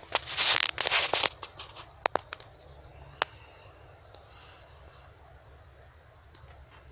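Footsteps crunching and brushing through dry grass and scrub, loudest and densest in the first second, then a few scattered crackles of dry stems. About four seconds in, a soft breathy hiss on the microphone.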